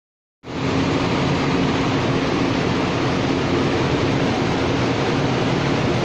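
Loud, steady running noise of an industrial machine, with a low hum underneath. It starts suddenly about half a second in.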